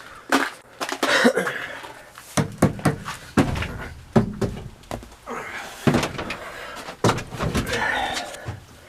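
A string of knocks and thumps, a dozen or so with a few heavier low thuds, as the snowmobile's plastic side hood is handled and moved.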